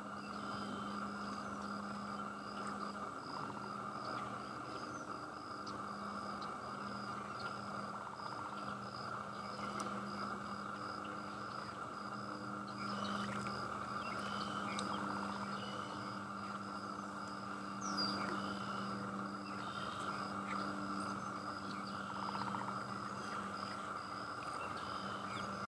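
Wetland ambience: a steady chorus of frogs and insects with a high pulsing call repeating evenly, a low drone with short breaks, and scattered short bird chirps, the loudest of them about two-thirds of the way through.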